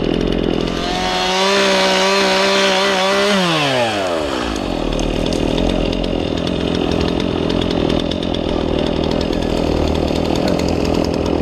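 Stihl chainsaw running and cutting wood. About a second in it revs high and steady at full throttle, then a little past the middle of the first half the pitch slides down as the throttle is released. Steady, dense engine and cutting noise runs underneath and carries on afterwards.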